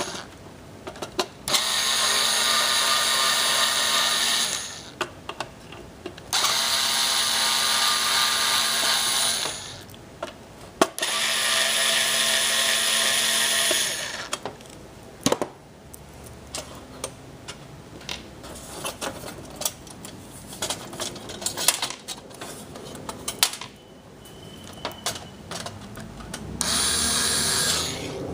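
Handheld power tool motor running in four bursts of two to three seconds, each starting and stopping abruptly, with clicks and knocks of parts being handled between the bursts.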